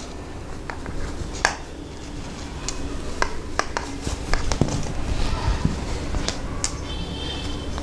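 Cotton fabric rustling under the hands, with scattered small clicks and ticks, as elastic is worked into a sewn casing along a gathered dress edge.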